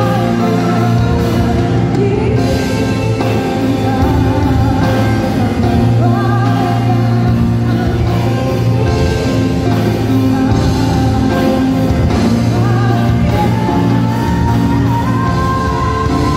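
A live pop band plays through a stage PA, with a woman singing lead over electric guitar, keyboard and a steady low bass.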